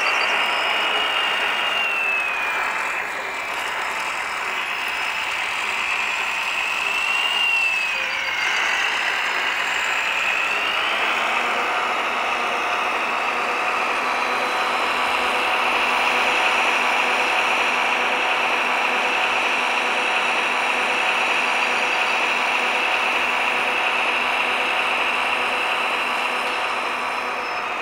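Electric hydraulic drive of 1:14-scale RC construction models working, a steady machine whine. For the first ten seconds or so a high tone dips and rises in pitch as the load changes, then the whine holds steady.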